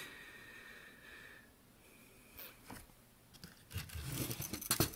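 Handling noise from the circuit board being moved: a few faint clicks around the middle, then about a second of rustling and scraping near the end.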